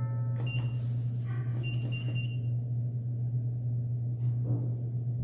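Loud steady low hum from a 2021 Shinhyo SH-MRL-120 machine-room-less traction elevator, the abnormal running noise that the rider finds the worst problem and thinks needs parts replaced. Short high beeps from the car's floor buttons come about half a second in and a few more around two seconds.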